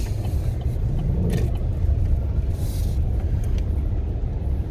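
Steady low rumble inside a truck cab driving through violent straight-line winds, the wind and the moving truck blending into one noise. A short hiss rises about two and a half seconds in, with a few faint ticks.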